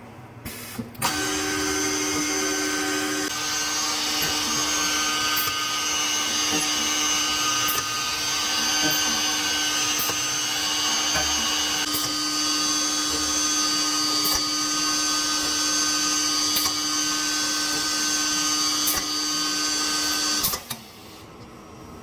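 ATC CNC router machining: the spindle and cutting make a steady high whine over a low hum. It starts about a second in and cuts off suddenly near the end.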